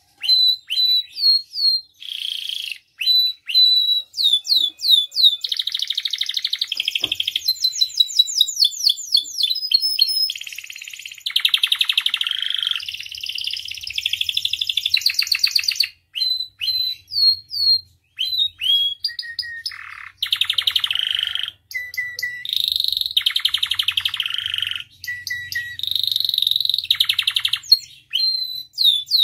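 Domestic canary singing a long, nearly unbroken song of fast trills, rapid repeated notes and quick downward chirps, with only brief pauses between phrases.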